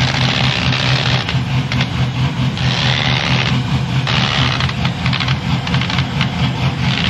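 GMC Sonoma's LS V8 engine idling steadily, with stretches of hiss and light clicks coming and going over it.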